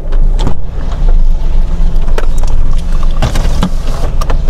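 Toyota hatchback's engine idling, a steady low hum heard inside the cabin, with a few knocks and rustles of things being handled in the car.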